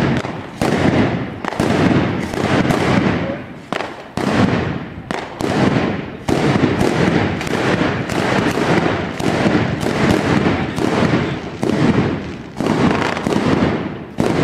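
B509 Mascleta firework going off: a rapid, nearly unbroken run of loud firecracker bangs, several a second, with a few short lulls.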